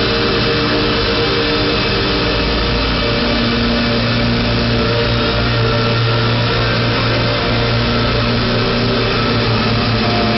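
Live experimental electronic music: a dense, steady wall of droning noise with long held tones at several pitches, and a man singing into a microphone.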